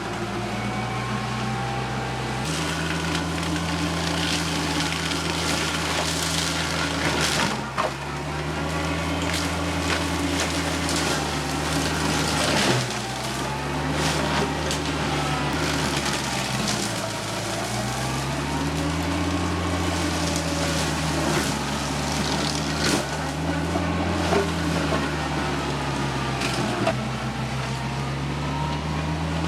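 TYM tractor's diesel engine driving a Baumalight MP348 forestry mulcher under heavy load. The engine note sags and recovers several times as the mulcher chews into brush and wood, with steady crackling and splintering from the cut material.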